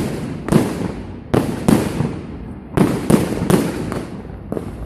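Fireworks bursting in a rapid series of sharp bangs, about two a second, each trailing off in a short echo.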